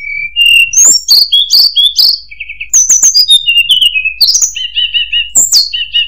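Hill blue flycatcher (tledekan gunung) singing a fast, varied song of sharp downward-sweeping whistles, short clear notes and quick repeated-note phrases.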